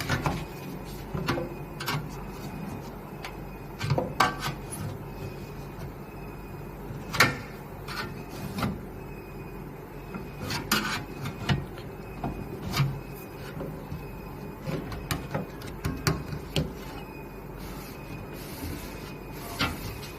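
Irregular clicks, knocks and creaks, a few seconds apart over a low steady hum, from item ES299484 being worked or handled: the abnormal noise it is being checked for.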